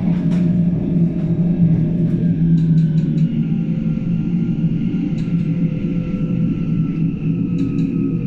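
Class 474 S-Bahn electric train heard from inside the passenger car while running: a steady low rumble with a faint motor whine slowly falling in pitch as the train slows, and a few light clicks.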